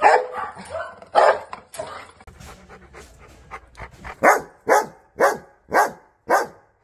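Rottweilers barking: loud, rough barks at first, then a quieter stretch of panting, then five short barks evenly spaced at about two a second.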